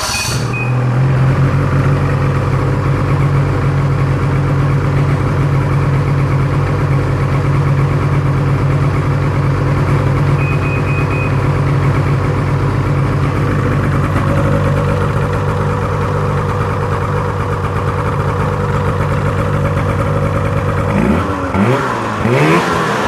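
Ski-Doo 600 SDI snowmobile's two-stroke twin engine starts abruptly and runs at a steady idle, then is revved up and down a few times near the end.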